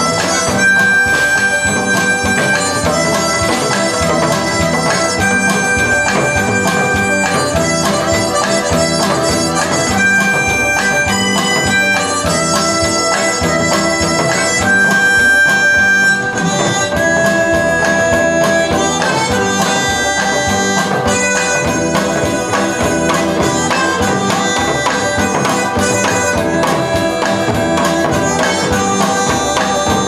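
Harmonica playing a melody of long held notes into a microphone, amplified over backing music with a steady beat.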